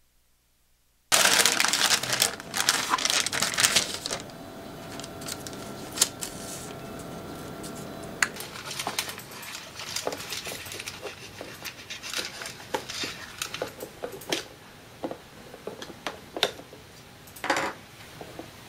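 Plastic wrap crinkling and rustling as hands handle food, loudest for a few seconds about a second in. After that come quieter rustles with scattered light clicks and taps of plastic.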